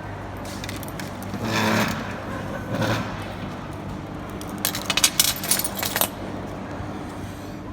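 A quick run of sharp metallic clinks and jangles about halfway through, over a steady low hum, with two duller rustling swells before it.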